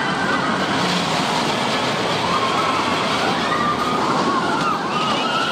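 Steel roller coaster train running along its track, a dense steady rumble with no letup.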